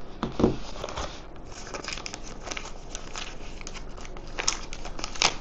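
Clear plastic packaging wrapper crinkling and crackling in the hands as it is handled and opened, in an irregular run of sharp crackles.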